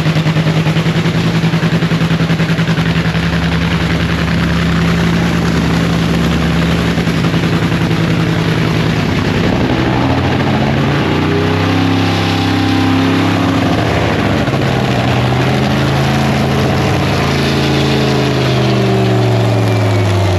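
Drag racing engine running at a steady idle for about nine seconds, then revved up and down repeatedly, the pitch dropping again near the end.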